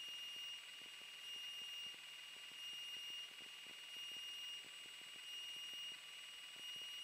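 Faint electronic tones: a steady high whine with a second tone pulsing on and off about every 1.3 seconds, like a weak alarm or electrical interference.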